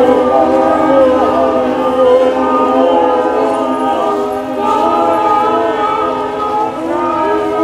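A group of performers' voices sounding together in long, wavering, overlapping tones: a wordless choral wail.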